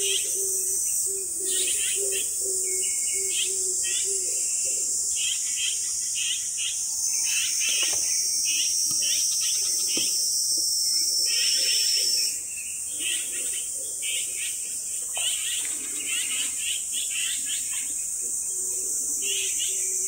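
Outdoor insect chorus, a steady high trilling of crickets or cicadas, with birds chirping repeatedly throughout. A low note pulses rapidly over the first few seconds and again at the very end.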